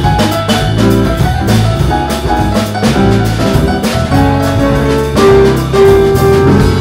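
Jazz trio playing live: piano, bass and drum kit, with cymbal strokes keeping time over low bass notes.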